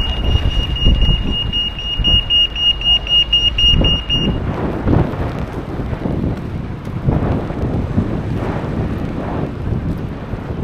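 Wind buffeting the microphone, with a low rumble throughout. A steady high-pitched tone runs through the first four seconds, breaks into rapid pulses, then stops.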